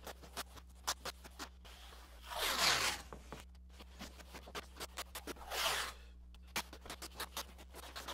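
Blue masking tape being pulled off its roll in two long rasping strips, about two and a half seconds in and again near six seconds, with quick small crackles and pats between as the tape is laid along and pressed onto the wooden kayak hull.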